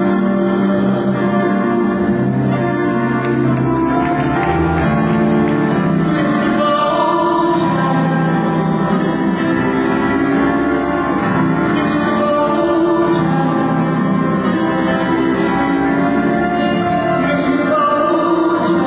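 Music with singing, played loud and steady over an arena's sound system, with cymbal-like crashes every few seconds.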